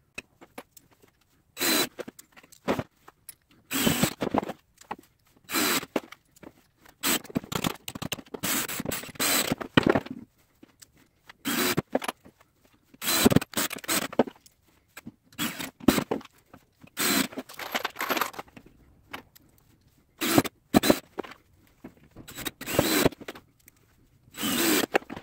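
Sped-up workbench sounds of a DeWalt cordless drill driving screws through washers and caster plates into wood, with screws and washers handled and jangled between drives: short irregular bursts of noise with gaps between them.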